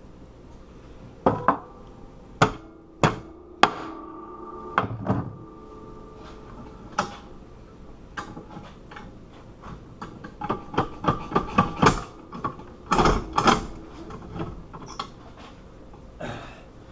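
Hammer blows on a steel disc padlock, each strike leaving a short metallic ring. About half a dozen blows come spaced out at first, then a quicker flurry of strikes in the second half.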